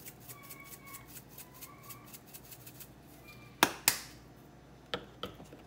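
Dried parsley flakes being shaken and crumbled into a stainless-steel pot, a faint rapid ticking. About three and a half seconds in come two sharp clicks close together, and two softer clicks follow near the end.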